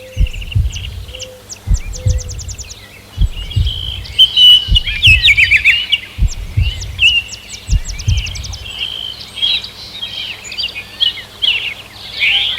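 Several birds singing and calling, including fast trills of rapidly repeated notes, with low thuds underneath about every half second to second.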